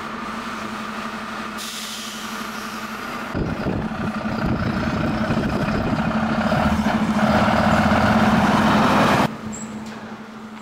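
Diesel engine of a MAN TGM fire engine running, then driving off with heavier rumble from about three seconds in. It grows louder and cuts off suddenly near the end.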